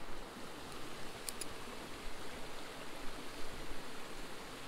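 Steady rushing outdoor background noise, with two faint ticks just over a second in.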